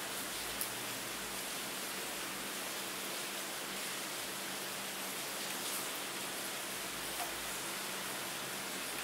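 Steady rain, an even hiss, with a few sharper ticks now and then.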